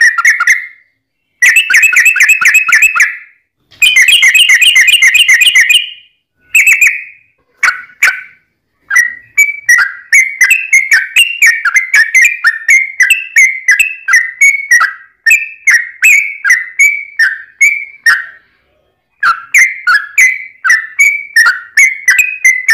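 Yellow-vented bulbul (trucukan) song: loud bursts of rapid chattering notes, then a long run of quick down-slurred notes about two a second, pausing briefly near the end.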